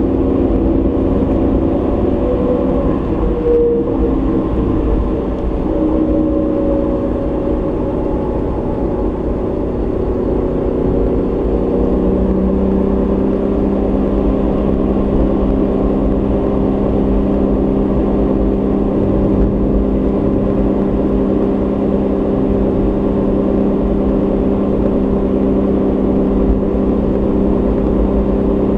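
Car engine and tyre road noise picked up inside the cabin by a dashboard camera while driving. The engine note shifts in pitch over the first few seconds, then settles into a steady drone.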